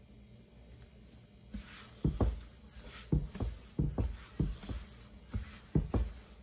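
Bread dough being kneaded by hand on a floured marble counter: a run of soft, dull thumps, about two a second, starting about two seconds in, as the dough is pushed and folded against the stone.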